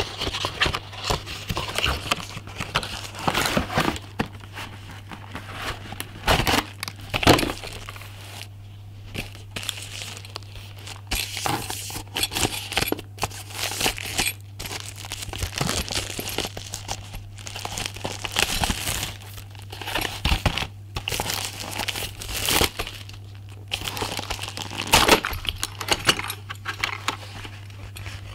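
Cardboard packaging and clear plastic wrap being handled and pulled open: irregular crinkling, rustling and tearing, with a few louder knocks. A steady low hum runs underneath.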